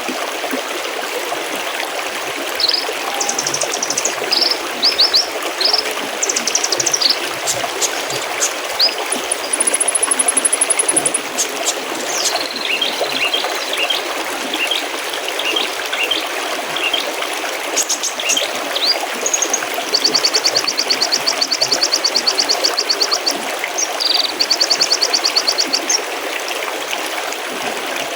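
Mountain stream trickling steadily, with small songbirds chirping over it and several fast trills, the longest about two-thirds of the way in.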